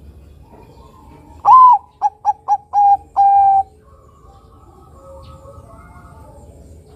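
Zebra dove (perkutut) cooing one loud song phrase about a second and a half in. A long opening note is followed by three quick short notes, then two longer held notes, lasting about two seconds in all.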